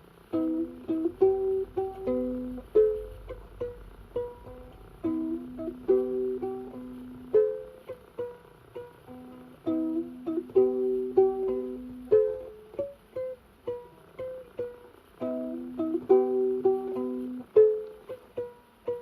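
Freshly strung Hinkler Strum Box box ukulele plucked note by note in a short melodic phrase that repeats, over a lower sustained note. The new strings are still settling and the ukulele is hard to get in tune.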